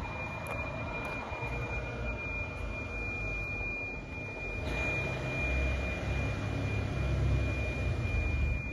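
Building fire alarm sounding one steady, unbroken high-pitched tone, with the low rumble of an idling vehicle engine, likely the arriving fire truck, growing louder about halfway through.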